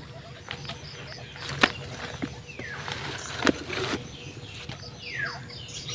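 Two high calls that slide steeply down in pitch, about two and a half seconds apart, over a faint, evenly repeating high chirping. Two sharp knocks, the loudest sounds, come about one and a half and three and a half seconds in.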